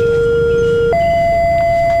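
Railway level crossing's electronic warning siren sounding a two-tone hi-lo alternation, each tone held for a little over a second. The low tone switches to the high one about a second in. A steady low rumble runs underneath.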